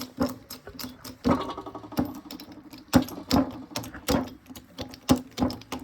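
20-ton hydraulic bottle jack being pumped by hand: a run of sharp clicks and knocks from the pump handle and piston, about two a second, over a steady low hum.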